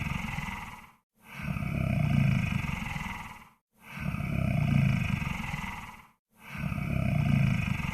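Monster snore-breath sound effect: deep, rattling, growling breaths, each swelling and fading over about two seconds. They repeat evenly about every two and a half seconds with short silent gaps, one ending about a second in and three more starting after it.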